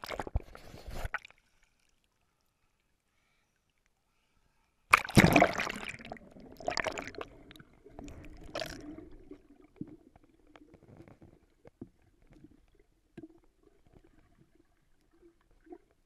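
Water sloshing and bubbling, heard muffled from a camera held underwater. A short splash at the start and then a few seconds of silence. Loud sloshing bursts come about five, seven and eight and a half seconds in, then fade to faint gurgles and small knocks.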